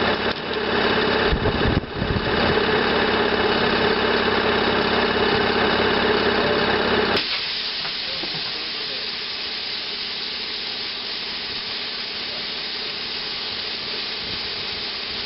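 Plasma cutter running with a steady buzzing hum and air hiss, which cuts off abruptly with a click about seven seconds in. A steady hiss of compressed air escaping from the air hose that blew off the cutter carries on after the cut-off.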